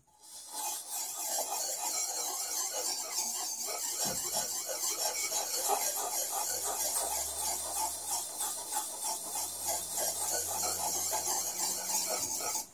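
Steel cleaver edge being rubbed in circles on an oiled Cretan (Girit) whetstone, giving a continuous, rhythmically pulsing scraping that starts and stops abruptly. This is the fast stock-removal stage, wearing the edge down quickly while holding the bevel angle.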